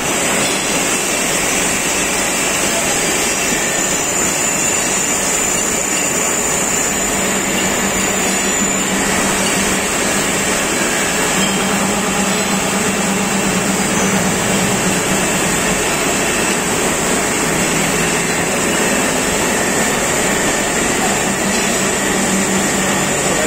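CNC milling machine with a Fanuc 0M control running and cutting a part, its spindle driven by a VFD at a single speed in place of the original spindle servo drive. The machine noise is steady, with a thin high whine throughout and a lower hum that comes and goes.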